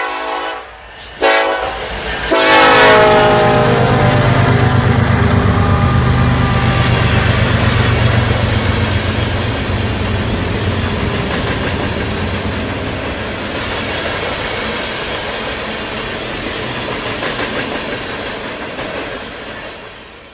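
Diesel locomotive horn: a short blast, then a long blast that falls in pitch as the train passes, followed by a loaded freight train's cars rolling by with a steady rumble and rhythmic wheel clatter that slowly fades.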